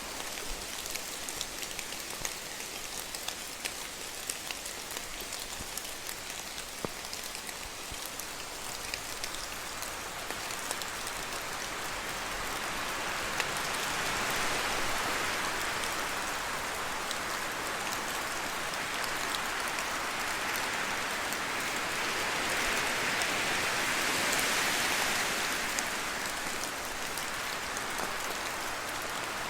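Rain falling in a spruce forest, a steady hiss with many individual drops landing. About halfway through, a gust of wind rushes through the spruces, building and dying away again near the end.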